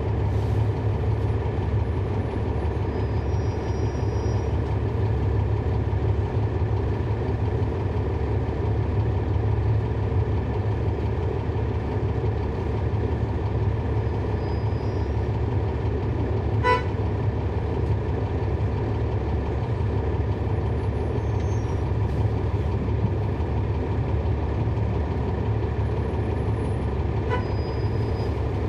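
Cummins ISL9 inline-six diesel engine of a 2012 NABI 40-foot transit bus, heard from on board, running at a steady, even drone. A short ping sounds about two-thirds of the way through and a fainter one near the end.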